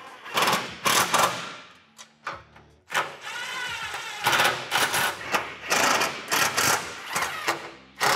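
Cordless power driver tightening windshield bracket bolts in short bursts. About three seconds in it spins once for about a second, its pitch rising and falling, then it gives a quick run of further bursts.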